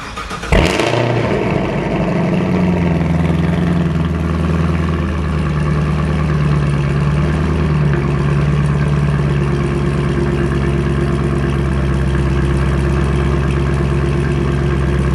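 Chevrolet Camaro ZL1's supercharged 6.2-litre V8 with a modified exhaust starting up with a sudden loud bark about half a second in. It idles high for a few seconds, settles to a lower steady idle around five seconds in, and cuts off at the end. Really loud.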